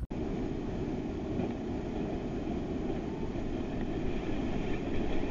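Steady city street noise, an even low rumble of traffic.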